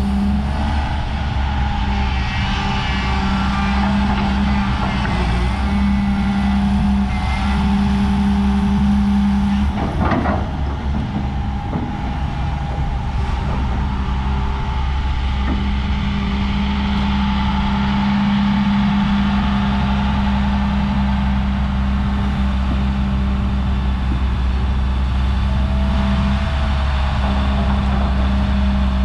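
2006 Hyundai Robex 450LC-7 hydraulic excavator's six-cylinder diesel engine running steadily under load, with the whine of its hydraulic pumps as the boom, arm and bucket are worked and the upper structure swings. A single sharp knock about ten seconds in, and a slowly rising whine near the end.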